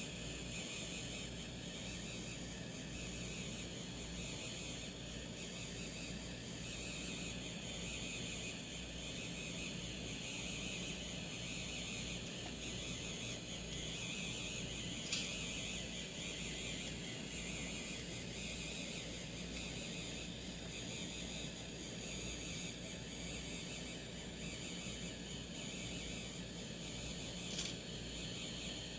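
A 3D printing pen's filament feed motor runs with a steady hum and hiss while it extrudes PLA filament.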